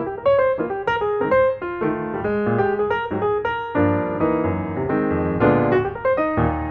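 Background piano music: quick single notes at first, then fuller chords over a bass line from about two seconds in.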